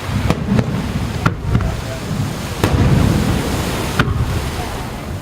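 Fireworks shells bursting over the sea: about six sharp cracks at uneven intervals over a continuous low rumble of booms.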